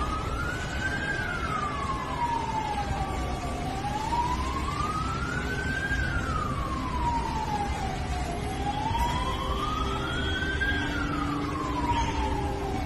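A siren wailing, its pitch sliding slowly up and then back down about every five seconds, three times over, above steady background noise.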